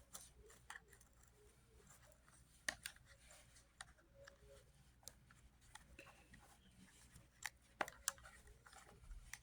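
Faint, scattered clicks and taps of a plastic vacuum attachment being handled, with the vacuum switched off.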